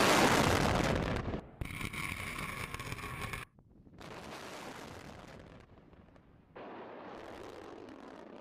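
Large explosion's blast rumble, loudest for about the first second and then dying away. Edits follow, with abrupt cuts about three and a half and six and a half seconds in, to quieter rumbling outdoor noise.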